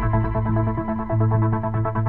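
Background music: synthesizer and keyboard documentary-style music with sustained low bass notes that pulse in a steady rhythm.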